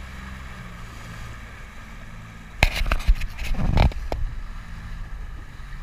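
Small open motorboat's engine running steadily. About two and a half seconds in, a cluster of sharp knocks and thumps lasts roughly a second and a half, the loudest sound here.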